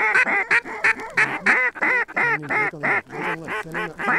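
Duck calls blown by hunters in a fast, unbroken run of loud nasal quacks, several a second, working a passing flock of mallards.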